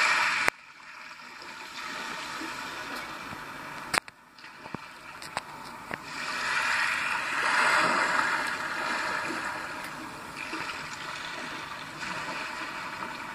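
Recorded rushing water played through the small speaker of a Roberts Gemini 49 DAB radio tuned to a digital test transmission, swelling to its loudest in the middle and then easing off, with a few sharp clicks.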